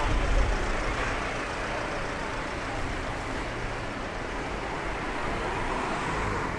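Road traffic on a busy city street: a steady hum of passing vehicles, with a louder low rumble in the first second.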